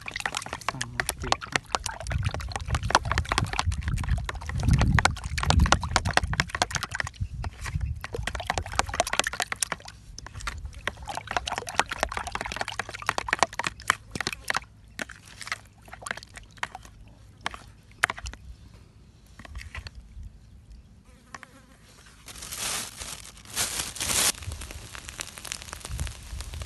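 A metal spoon beating raw eggs in a plastic bowl: fast, close-spaced clicking and scraping strokes, thinning to scattered clicks past the middle. Near the end comes a brief louder burst of hissing noise.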